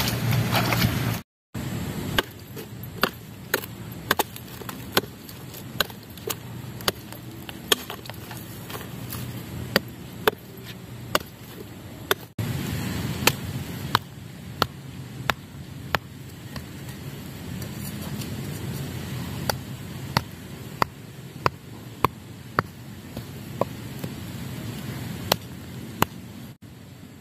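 A stone pounding the top of a wooden stake, driving it into packed earth: sharp knocks, about one to two a second. A second of louder rushing water and movement noise comes at the very start.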